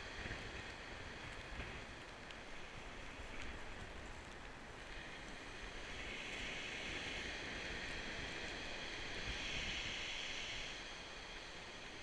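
Rough sea surf breaking and washing up and back over a shingle beach, with wind. The hiss of the wash swells about five seconds in and eases off near the end.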